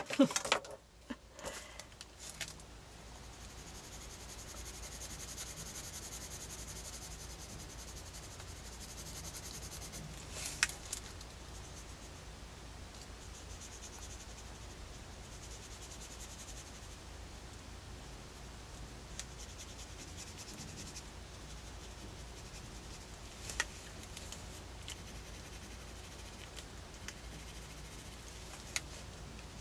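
Faint scratching of a water brush pen and a colouring pencil working on sketchbook paper, with three light clicks or taps spread through, over a low steady hum.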